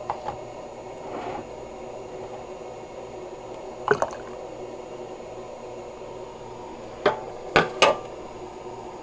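Household espresso machine running with a steady low hum and faint liquid sounds as it heats water to brew. Sharp kitchenware clinks come once about four seconds in and three times near the end.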